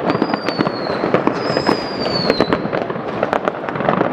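Constant barrage of New Year's fireworks and firecrackers going off all around, dense sharp bangs and crackles over a rumbling background. In the first half, two high whistles from whistling fireworks glide slowly downward, one after the other.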